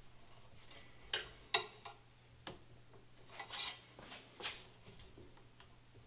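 Light metallic clicks and knocks from a BCM KMR Alpha 15-inch handguard rail being shifted by hand on an AR-15 upper while it is lined up with the index plate. There are about five short knocks and one longer scrape a little past halfway.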